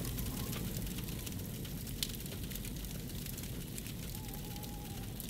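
Fires burning, with steady crackling and scattered pops over a low rumble; one sharper pop comes about two seconds in.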